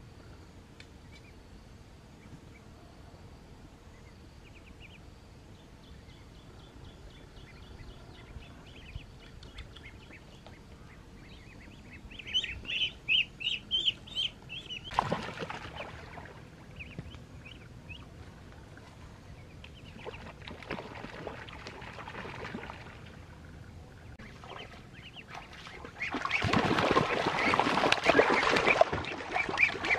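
Ducklings peeping: faint high calls at first, then a loud, rapid run of peeps about halfway through, with a brief rustle in the brush. Near the end, loud splashing of water as a person wades through a shallow stream.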